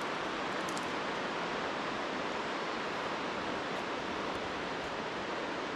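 Steady rushing of a mountain river below, an even noise without breaks.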